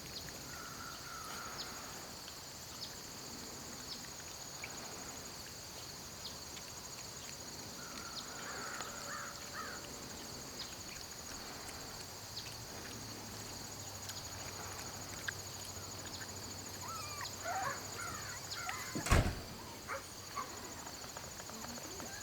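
Steady, finely pulsing chorus of insects, crickets, with scattered short faint chirps. A single sharp knock near the end.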